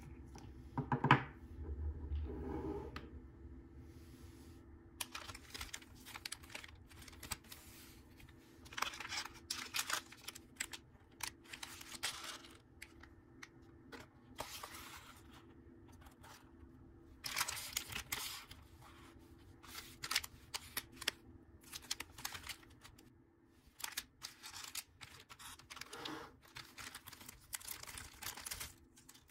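Plastic parts bags crinkling and rustling in irregular bursts as small robot parts are unpacked and handled, with a sharp knock about a second in.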